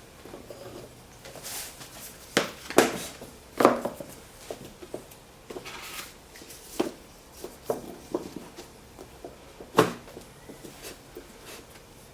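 Irregular wooden knocks and clunks as oak bookend pieces are handled and set down, the loudest a few seconds in and again near ten seconds.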